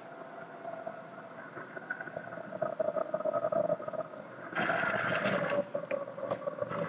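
Crowd noise in a large arena hall, a steady wash of many voices that grows louder about four and a half seconds in and eases off near the end.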